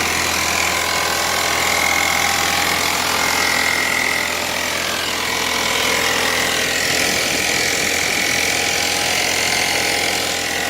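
1998 Chevrolet Cavalier Z24's 2.4-litre four-cylinder engine running with a steady, rapid knock from the bottom end: rod knock, the sign of a worn connecting-rod bearing.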